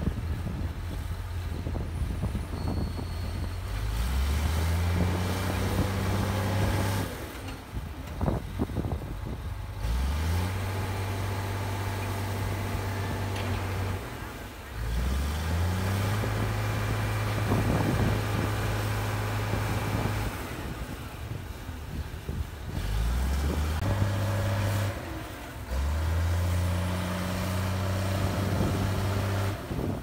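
Komatsu D53P bulldozer's diesel engine running hard under load, its note dropping away and then climbing back up about five times as the dozer strains to free itself from mud.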